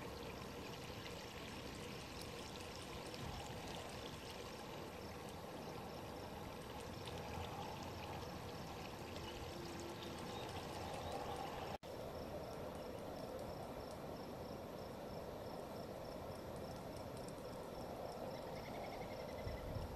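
Steady wash of river water flowing and lapping along the bank, cutting out for an instant a little past halfway.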